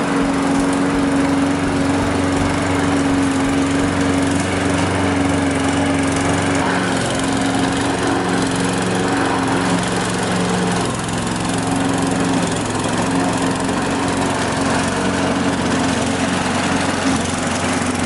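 Sterwins petrol walk-behind rotary lawn mower running steadily at an even engine pitch while cutting long grass, with a slight dip in level about halfway through.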